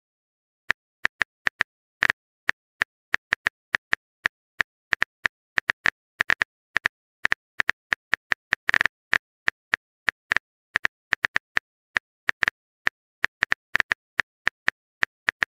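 Phone keyboard typing clicks: a long string of short, irregular taps, several a second, with a quick flurry about nine seconds in.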